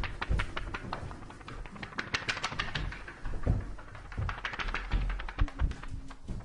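A quick, irregular run of taps and clicks. A low steady hum comes in near the end.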